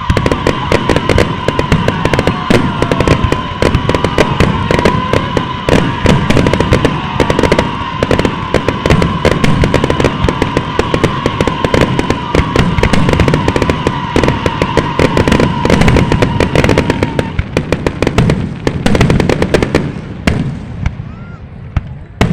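A dense barrage of fireworks going off: rapid, overlapping bangs and crackles, with a steady whistling tone running underneath. The whistle fades about three-quarters of the way through, and the bangs then thin out to scattered reports near the end.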